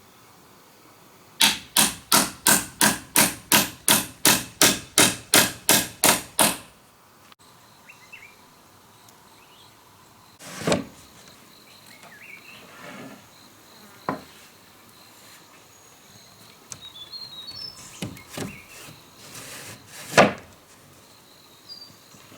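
A hammer striking wood: a quick run of about fifteen even blows, roughly three a second, then a few single knocks spaced several seconds apart. Insects buzz steadily and a bird chirps briefly.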